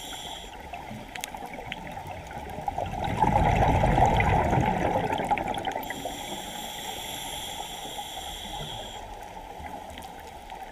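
Scuba breathing heard underwater through a regulator: a rush of exhaled bubbles rises and fades over about two seconds in the middle, then a thin steady hiss of an inhalation follows for about three seconds.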